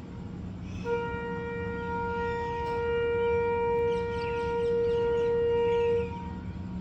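One long, steady note from a wind instrument or horn, held for about five seconds and cutting off near the end, with faint bird chirps behind it.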